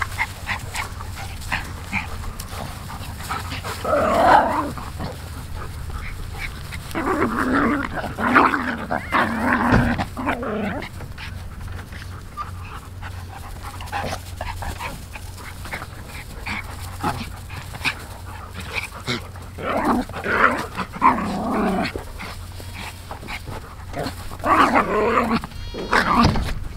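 German Shepherd dogs playing and giving rough vocal noises in four bouts, the longest lasting about three seconds.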